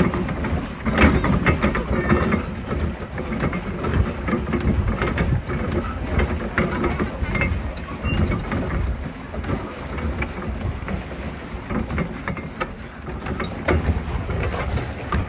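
Swan pedal boat under way: a steady low rumble with irregular clicks and knocks, from the pedal drive and the paddle wheel churning the water.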